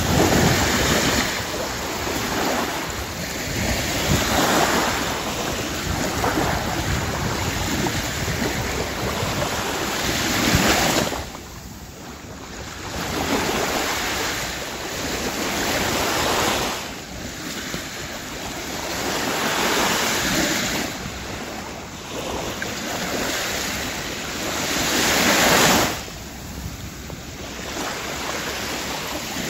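Small waves washing up a sandy beach and drawing back: a steady hiss of surf that swells and falls every few seconds, with several short lulls between the surges.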